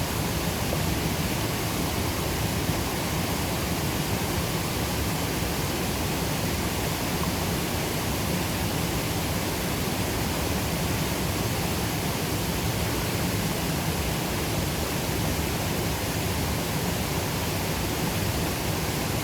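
Steady rush of a highland river pouring over a waterfall: an even, unbroken roar of falling and churning water with no pauses.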